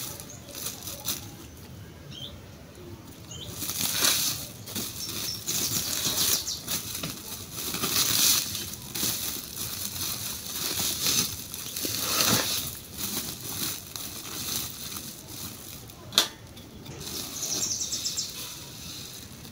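A woven plastic sack of sesame seeds being handled and opened: irregular rustling and crinkling as the sack is untied and folded back and a hand works inside it. A single sharp click about sixteen seconds in.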